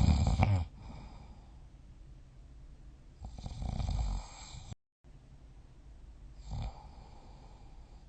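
A sleeping person snoring: a loud snore ends about half a second in, a second snore comes around three seconds in, and a short, softer snore follows later. Just before the last one the sound cuts out completely for a moment.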